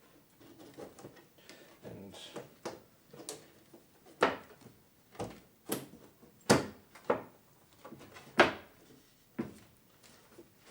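Wooden drawer panels being handled and fitted together to close the frame: a string of sharp wooden knocks and clacks, light at first, then louder ones about a second apart.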